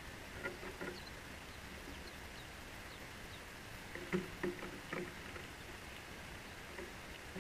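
House sparrows' feet tapping and knocking on a wooden fence rail as they hop, land and take off. There are two light taps about half a second in and a cluster of sharper knocks about four to five seconds in, over a steady outdoor hiss, with a few faint high peeps.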